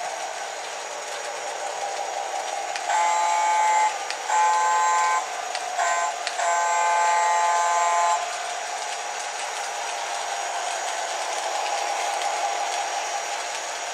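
Model Alco diesel locomotive's electronic multi-tone horn sounding four blasts, long, long, short, long: the grade-crossing signal. Underneath, the steady running noise of the O gauge train on the track.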